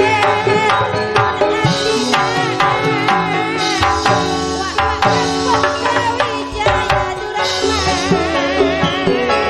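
Madurese gamelan-style music: hand-played kendang drum patterns over struck metallophones and keyboard, with a high melody carrying a wide vibrato near the end.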